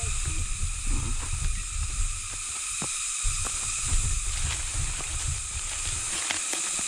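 Wind buffeting the microphone in irregular low gusts, over a steady high hiss, with a few faint clicks and knocks.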